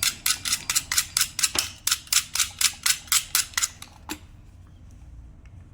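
Rapid hand scraping or filing strokes, about four a second, ending about four seconds in: likely a wire or terminal being scraped clean before soldering.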